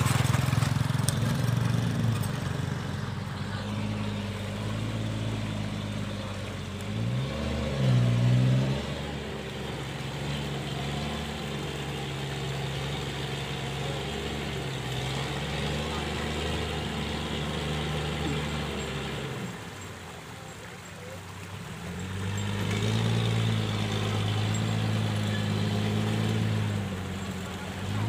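Kubota DC-105 combine harvester's diesel engine and a truck's engine running together. The engine note rises and falls in a brief rev about eight seconds in, drops away around twenty seconds, and builds back up about two seconds later.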